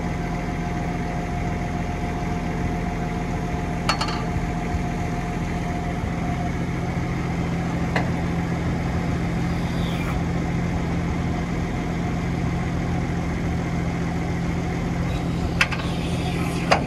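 Tractor engine idling steadily while the hitched planter's hydraulic fold lifts its row-unit wings, with a few sharp clicks and clunks from the folding frame.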